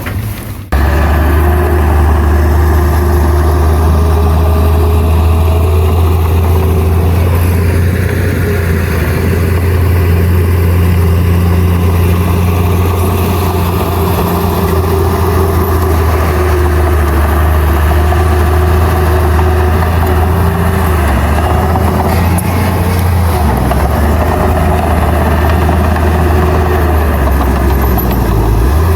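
Heavy earthmoving machine's diesel engine running steadily, its sound cutting in abruptly less than a second in.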